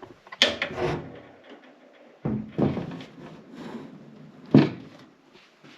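Knocks, thuds and scraping as a steel PC case is handled and opened up, in three bursts, the sharpest a single thud about four and a half seconds in.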